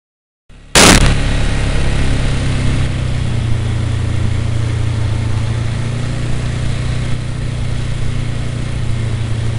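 A vehicle engine running steadily at riding speed, a low even hum over rushing noise from tyres on the gravel road. The sound cuts in about half a second in with a sharp knock.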